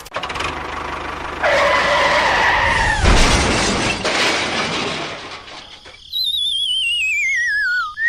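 Cartoon-style sound effects: a steady squeal, then a loud crash that dies away over a couple of seconds, then a wavering whistle falling in pitch.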